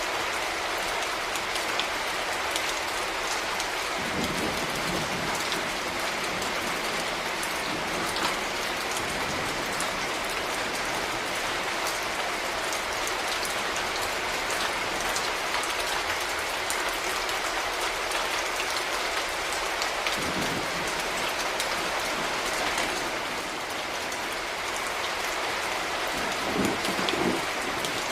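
Steady rain falling and pattering on surfaces, with a few brief low knocks of heavier drops, about four seconds in, at twenty seconds and twice near the end.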